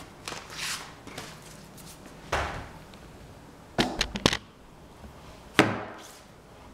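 Scattered knocks and clicks of things being handled: a knock about two and a half seconds in, a quick run of about four clicks a second later, and a sharper knock near the end that rings on briefly.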